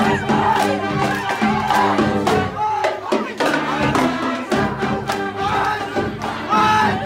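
Pep band of saxophones, trumpets and clarinets playing an upbeat tune over a steady beat, with a crowd of students shouting along.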